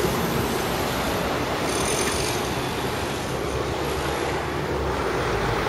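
Steady road traffic noise, a continuous rumble and hiss of passing vehicles.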